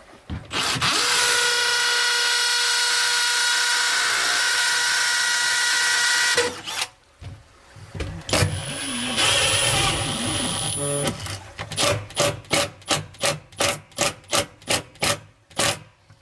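Cordless drill driving a screw through plastic shims into a wall. The motor gives a steady whine for about five and a half seconds, then runs again for a couple of seconds, then gives a string of quick short bursts, about three a second, near the end.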